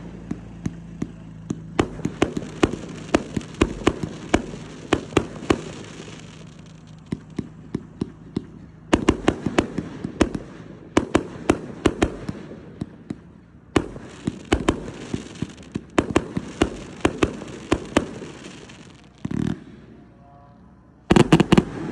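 A 100-shot firework cake ("Chaos") firing: runs of rapid launch thumps and aerial bangs with crackling between them. The shots come in volleys with a few short lulls, and there is a last loud flurry of bangs near the end.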